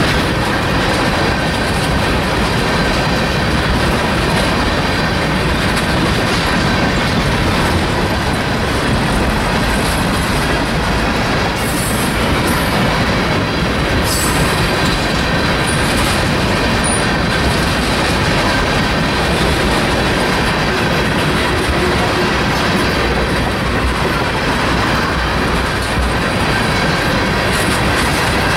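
Freight train tank cars rolling past close by: a steady, loud rumble and clatter of steel wheels on the rails, with no let-up.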